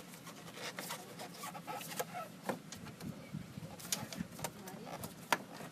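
Scattered light clicks, taps and rubs of the plastic air intake duct being pushed back onto the throttle body, with one sharper click about five seconds in.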